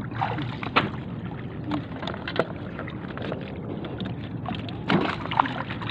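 Sea water sloshing and splashing as a hand-held push net on a wooden pole frame is worked through it, with scattered sharp knocks and clicks.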